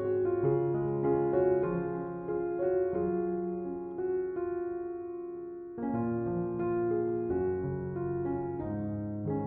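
Slow, gentle piano music: sustained chords with single notes moving over them, one chord dying away in the middle before a new one is struck about six seconds in.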